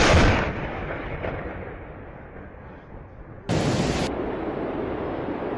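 A sudden loud boom that dies away over a second or two, then, about three and a half seconds in, an abrupt switch to a steady rushing noise.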